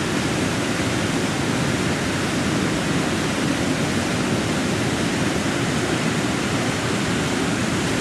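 Waterfall rushing: a steady, unbroken roar of white water tumbling over rocks.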